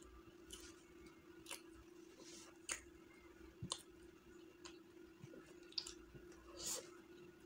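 Faint hand-eating sounds of chicken biryani: fingers mixing and squeezing rice on a plate, then a handful taken into the mouth and chewed, heard as scattered soft clicks and smacks over a steady faint hum.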